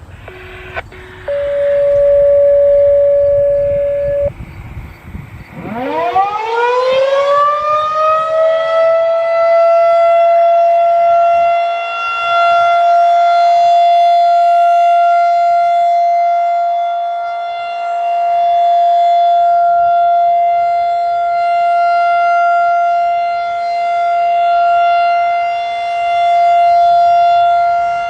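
Federal Signal 2001-DC rotating mechanical siren winding up from a low growl to a steady high wail within a few seconds, then holding the full-alert steady tone, its loudness swelling and fading every few seconds as it rotates. A short steady tone sounds for a few seconds just before the wind-up.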